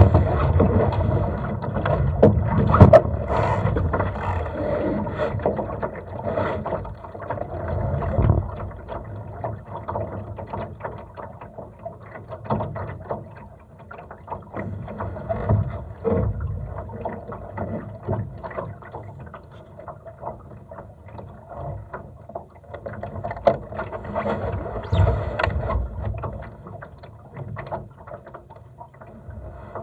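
Water lapping and splashing against a Laser dinghy's hull as it sails in light wind, rising and falling unevenly, with scattered clicks and knocks from the boat; the loudest knock comes about three seconds in.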